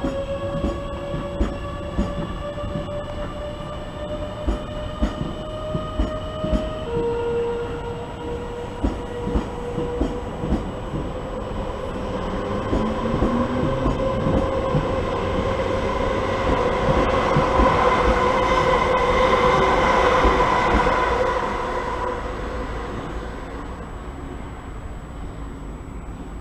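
Southeastern electric multiple unit pulling through the station: the traction motor whine rises in pitch as it accelerates, steps to a steadier tone about seven seconds in, while the wheels click over rail joints. The running noise then swells louder past the middle as the carriages go by close, and fades near the end.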